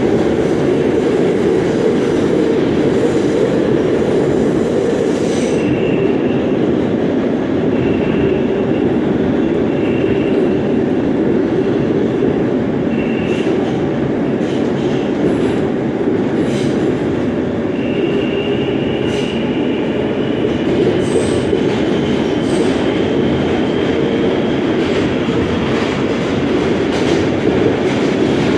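R143 subway car running through a tunnel, heard from inside the car: a steady, loud rumble. A faint high squeal comes and goes, in short bits at first and then a longer one rising slightly in pitch from about halfway, with occasional clicks from the track.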